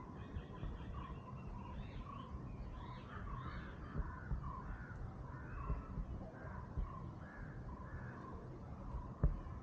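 Birds calling over and over in quick succession, with a steady low rumble underneath.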